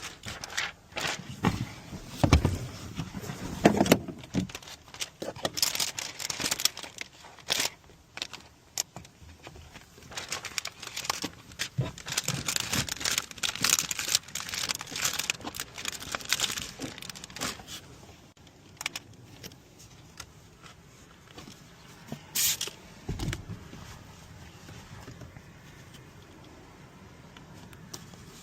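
Irregular scraping, crackling and clicking of window-tinting work: tint film being handled and worked against glass. It is busiest in the first two-thirds and sparser after about 18 seconds, with a few low thumps.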